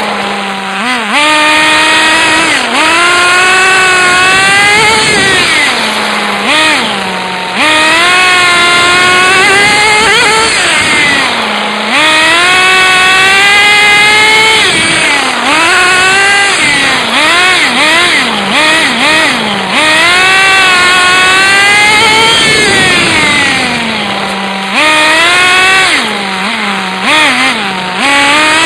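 Radio-controlled car's motor revving up and down over and over, a buzzing, high-pitched note that climbs and falls every second or two and drops back to a low steady note a few times. It is heard up close from a phone camera strapped onto the car.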